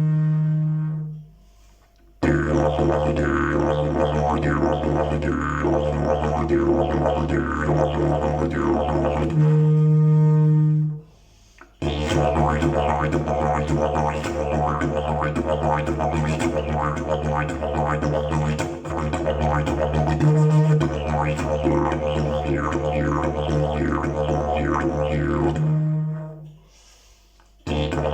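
Fiberglass slide didgeridoo playing a steady low drone with rhythmic mouth and voice patterns over it. It plays in long phrases broken by three short pauses for breath.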